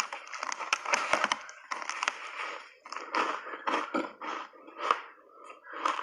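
Block ice coated in milk powder being crunched between the teeth close to the microphone. A dense crackling crunch comes first, then separate chewing crunches about two a second.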